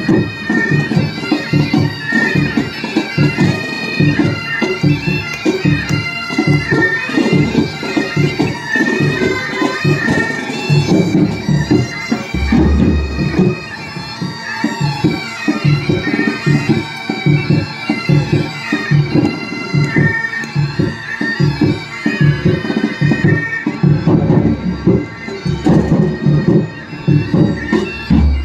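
Military pipe band playing: several bagpipes sound the tune over their steady drones, with side drums and a bass drum beating time.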